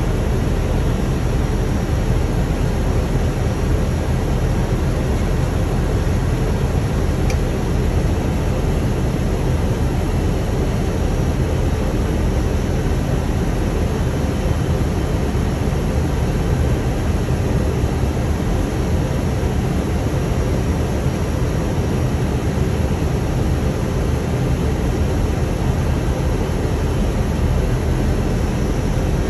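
Steady, even rush of noise on the flight deck of an Airbus A320 on short final: airflow around the cockpit and the engines at approach power, unchanging throughout.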